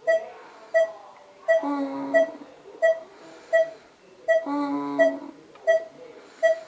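Breathing pacemaker (diaphragm pacing system) beeping: short, high electronic beeps about every 0.7 s, with a longer pitched sound lasting under a second joining in twice, in a cycle of about three seconds.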